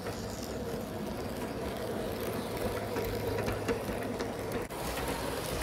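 Bachmann large-scale (G scale) James the Red Engine model locomotive running on its track: a steady whir from its electric motor and gearing, with faint ticks.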